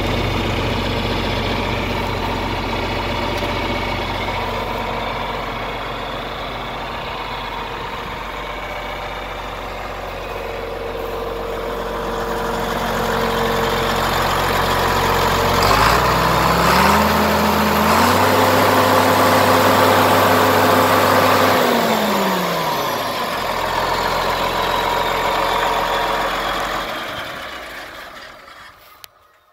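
John Deere 4430's turbocharged six-cylinder diesel running at idle, revved up in steps about halfway through, held there a few seconds, then let back down to idle. It dies away near the end as the engine is shut off.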